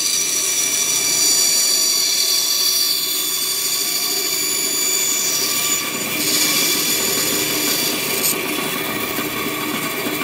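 Bandsaw running with a steady whine while its blade cuts an angled relief cut through plywood. A harsher cutting noise builds from about six seconds in and stops sharply about eight seconds in.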